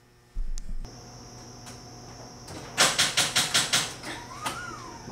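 A low thump, then a Ford Mustang's starter solenoid clicking rapidly, about seven clicks in a second, as the key is turned without the engine cranking: the sign of a dead battery.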